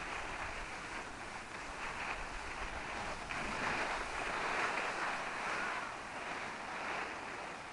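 Steady rushing, scraping noise of a snowboard sliding over snow, with wind on the microphone; it grows louder about three and a half seconds in and eases off again around six seconds.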